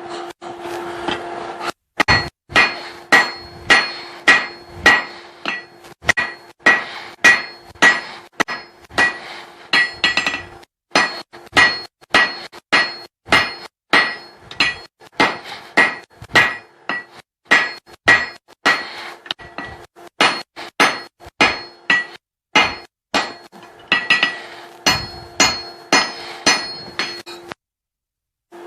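Blacksmith's hand hammer striking a steel workpiece on an anvil, a steady run of blows about two a second, each with a bright metallic ring. The blows pause briefly twice and stop shortly before the end.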